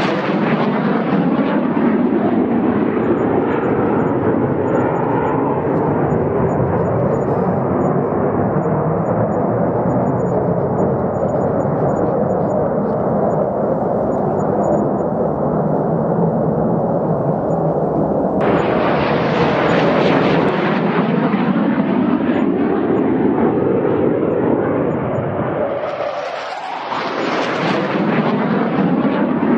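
Fighter jet engine noise from a series of low passes. The first jet's sound slowly drops in pitch as it moves away, then cuts abruptly to another loud pass about two-thirds of the way in. Near the end the sound dips briefly with a sweeping, phasing whoosh before swelling loud again as the next jet passes.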